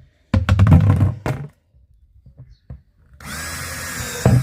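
Power drill boring drainage holes in a plastic plant container: a short run under load, a pause, then a steady whining run just over a second long.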